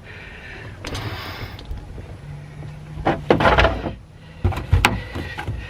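Cordless drill/driver backing a screw out of the plastic cargo bucket: the motor runs for about two seconds in the middle with a scratchy stretch as the screw turns, and sharp clicks and knocks of handling come before and after.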